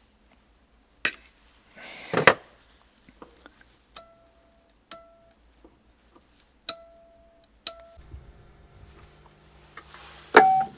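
Sharp snip of wire cutters nibbling the end of a metal electric-piano reed, followed by a short clatter. The trimmed reed is then flicked four times, each giving a brief ring at one pitch, to check its tuning; near the end an amplifier hum comes on and a loud electric-piano note sounds.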